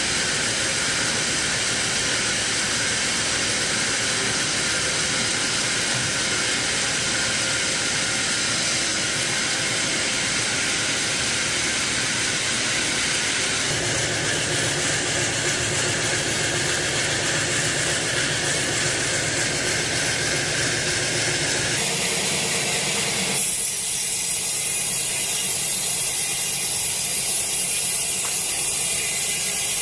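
Sawmill saw running steadily through a wet teak log as it rips it lengthwise into beams, a continuous hissing cut. The sound changes abruptly about halfway through and again about two-thirds of the way in.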